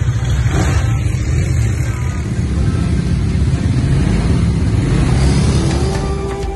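ATV (quad bike) engine running while riding over a dirt track, a heavy, steady low rumble.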